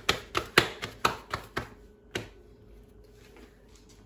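Hands slapping chapati dough back and forth between the palms to flatten it, a quick even rhythm of about four slaps a second that stops about halfway through, with one last slap about two seconds in.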